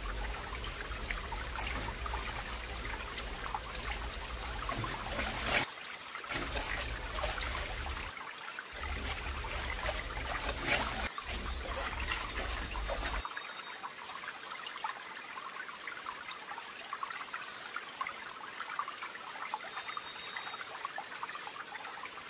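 Water trickling and sloshing in a plastic bucket as gloved hands wash a cat sitting in it, the sound changing abruptly several times.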